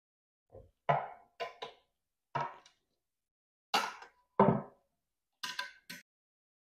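A quarter-inch-drive torque wrench and its socket clicking and clacking on the bolts of an aluminum propeller hub as they are torqued, with the metal wrench knocked down against the bench. About nine short, sharp knocks, unevenly spaced; the loudest comes about four and a half seconds in.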